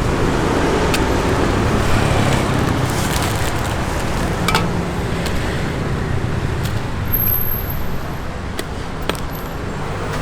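Busy roadside street noise with steady traffic, and scattered sharp clicks and light clatter from handling close by.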